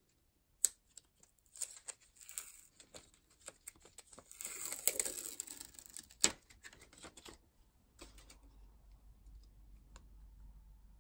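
Hands handling clear plastic stamps and their plastic packaging: scattered light clicks and tapping, a crinkling rustle about five seconds in and one sharp click just after, then it goes quiet.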